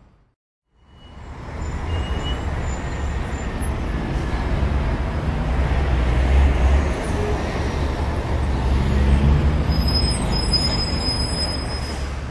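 Outdoor road-traffic rumble, swelling and easing as vehicles pass, after a brief silence at the start.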